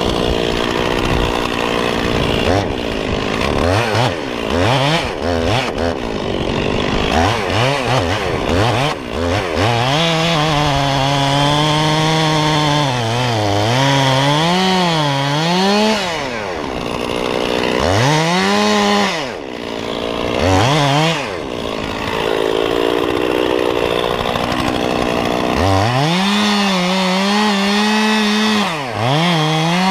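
Stihl 460 chainsaw with a 28-inch bar cutting into the base of a cottonwood trunk at high revs. Its engine pitch repeatedly sags as the chain loads up in the cut and climbs again, easing off briefly a few times before running back up.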